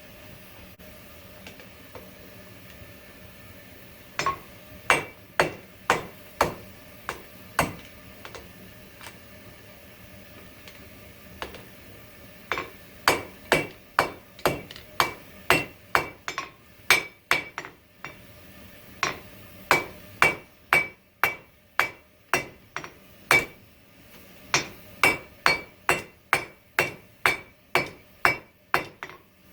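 Hand hammer striking hot coil-spring steel on an anvil, flattening the edges while drawing out a knife blade. A handful of blows about four seconds in, then after a pause a steady run of strikes about two a second, each with a short bright ring, broken by two brief pauses.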